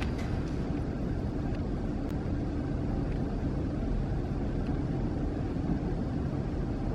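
Steady low rumble of a large arena's background noise, with no voices or music and a few faint clicks.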